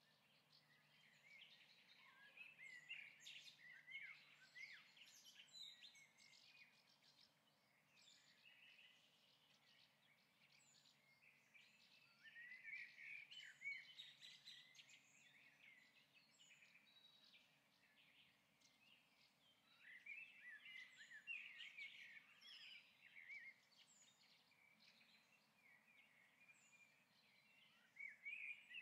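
Faint birdsong: a small bird singing chirping phrases of a few seconds each, with pauses of several seconds between them, over a faint steady low hum.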